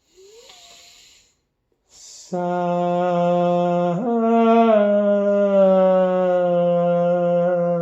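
A soft breathy sound, then a hissed "s" opening one long chanted "sun" about two seconds in. It is held as a steady hummed tone that rises briefly in pitch near the middle and then settles and holds: vocal toning for sound healing.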